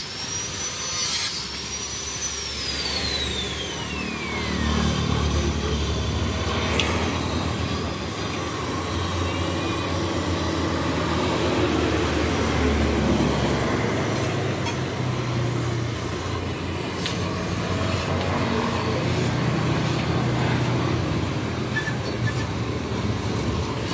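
Oxy-acetylene cutting torch hissing steadily as it cuts through the steel shell of a motorcycle muffler. In the first few seconds a high whine falls in pitch, and a low rumble swells and fades twice.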